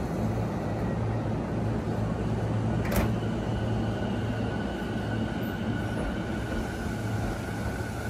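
Sotetsu 11000 series electric train pulling out of the station: a steady low hum, a sharp click about three seconds in, then a high steady whine that joins in as the train moves off.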